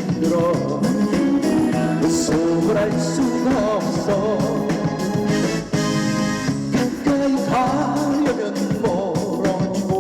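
Trot music played live and loud: a wavering melody line over a steady band accompaniment, with a brief dip about six seconds in.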